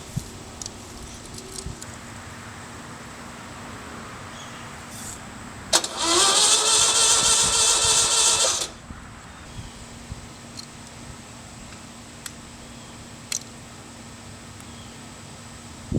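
1974 VW air-cooled flat-four engine cranking on its starter for about three seconds, a little rising in pitch as it spins up, then cutting off abruptly without firing: a no-start after head work and new rings.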